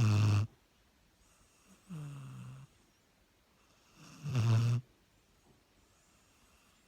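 Dog snoring in its sleep: three rasping snores about two seconds apart. The first and last are loud, and the middle one is softer with a falling pitch.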